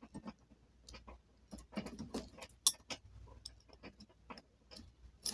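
Scattered faint clicks and light taps, irregular rather than in a steady rhythm, with one sharper click a little past the middle.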